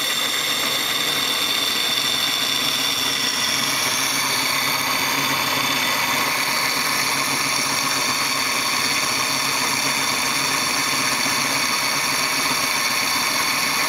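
A metal lathe running steadily with a driveshaft spinning in its chuck. It gives a constant machine hum with a steady high whine over it.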